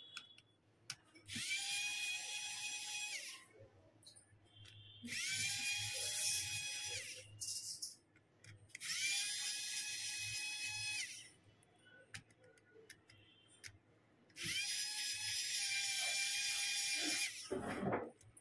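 Cordless pen-type electric precision screwdriver whirring in four runs of two to three seconds each, turning the small screws of a phone's midframe. Each run opens with a short rise in pitch as the motor spins up, with small clicks between runs.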